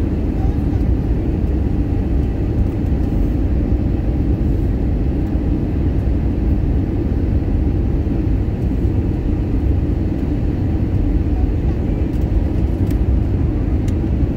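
Steady, deep cabin roar of an Airbus A320 on approach to landing, heard from a window seat over the wing: engine and airflow noise running evenly.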